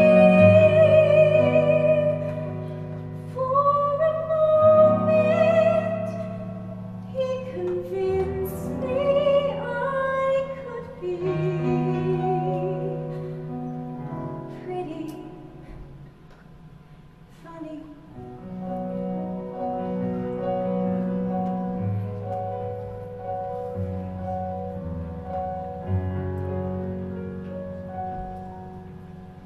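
A girl's solo singing voice, held with vibrato, over piano accompaniment; the voice stops about thirteen seconds in and the piano plays on alone in slow repeated chords, growing quieter near the end.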